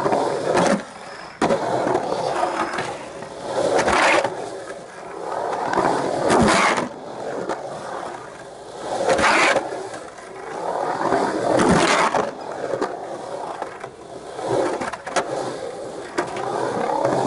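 Longboard on hard urethane wheels rolling and carving around a concrete skate bowl: a rough rolling rumble that swells and fades every two to three seconds as the board passes up and down the walls. A few sharp clicks come in along the way.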